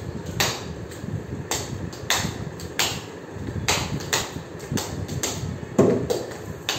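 Irregular sharp slaps and taps on a hard tiled floor during rough play with a small dog, about one or two a second over a low rumble of movement. The loudest slap comes near the end.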